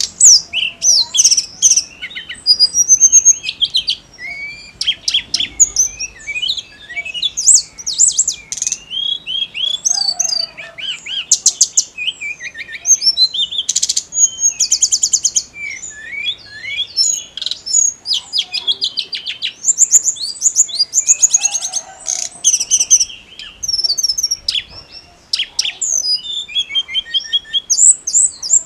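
Hill blue flycatcher singing energetically without pause: a fast, varied, high-pitched song of sweeping whistles, twitters and trills in quick succession.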